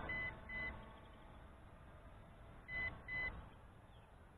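Quadcopter radio controller giving short, high electronic beeps in pairs: one pair at the start and another about 2.7 seconds later.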